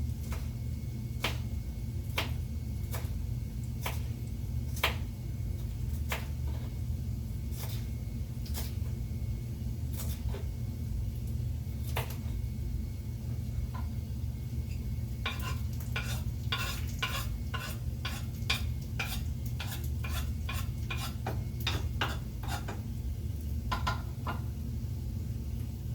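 Knife cutting fresh coriander on a cutting board. Scattered single cuts come first, then a quick run of rapid chops from about halfway until near the end, all over a steady low hum.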